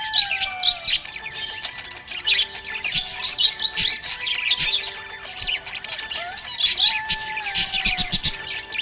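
Budgerigars chirping and chattering in a dense, rapid stream of high calls. A held tone that falls slightly in pitch runs under them near the start and again near the end.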